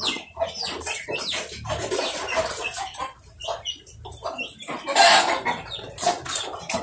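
Chickens clucking in short, irregular calls, with a louder noisy burst about five seconds in.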